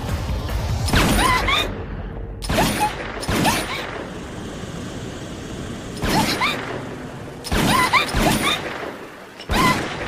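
M14-type semi-automatic rifle fired in a series of shots, about six loud reports in ten seconds, several with a short rising whine in them.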